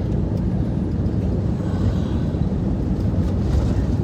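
Steady low rumble of an airliner's cabin noise, engines and airflow heard from inside the cabin, during landing.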